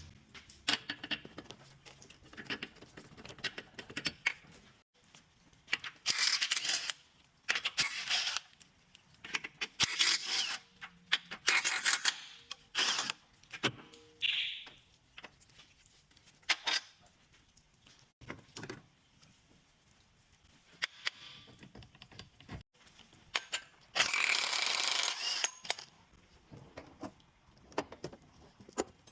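Mechanic's tools at work on a front suspension: irregular metallic clicks and clinks, with several short bursts of noise lasting about a second each, the longest near the end.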